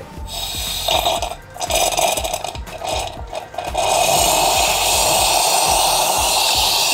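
Bellman CX-25 stovetop espresso pot extracting under pressure: coffee sputters and hisses out of the spout into a glass pitcher, in uneven spurts at first, then a steady, louder jet from about four seconds in. It sprays hard because of the pot's high pressure.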